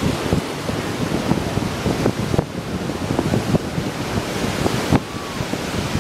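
Ocean surf breaking and washing up the shore in a continuous rush, with gusty wind buffeting the microphone.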